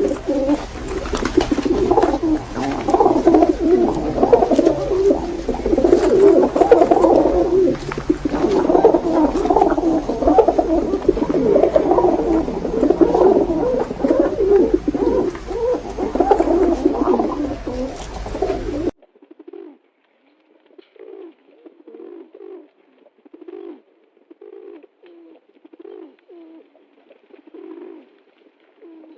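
Pigeons cooing, many overlapping calls at once. About 19 seconds in, the sound drops abruptly to fainter, separate coos, roughly one a second.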